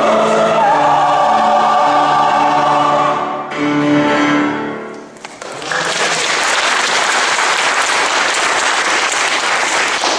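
Mixed church choir singing with violin and cello accompaniment, the piece ending about five seconds in. Audience applause follows, lasting to near the end.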